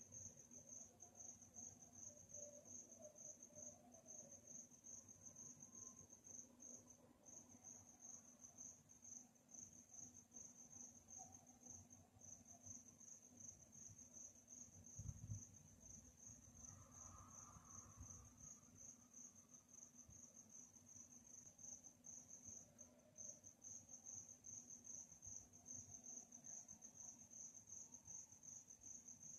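Crickets chirping in a fast, continuous high trill at night, with brief pauses a couple of times. A faint low hum runs underneath, and a soft low thump comes about halfway through.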